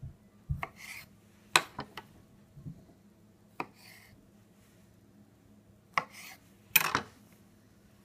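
Kitchen knife cutting grapes on a wooden cutting board: irregular sharp knocks of the blade on the board, with short soft rubbing sounds between them.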